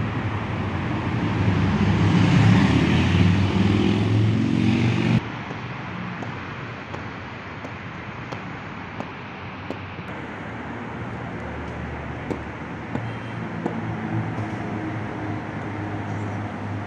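Road traffic: a motor vehicle running close by, building to its loudest about two to four seconds in and cutting off suddenly at about five seconds, then a quieter steady traffic hum with a few faint clicks.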